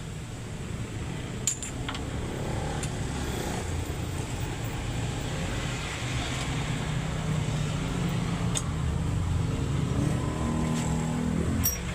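An engine running steadily, with a few sharp clicks.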